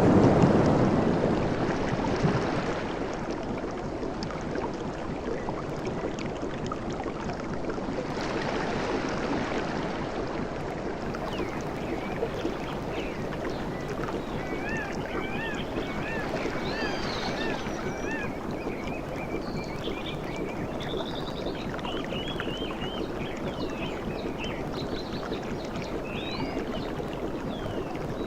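Surf on a beach: a wave breaks and washes in right at the start, a smaller one about eight seconds in, with the steady hiss of water between. From about twelve seconds on, birds call over it in repeated short whistled notes.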